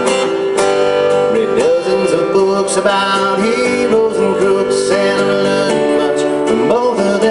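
Live band music: a strummed acoustic guitar over a steady band backing, with a man singing a held, wavering vocal line.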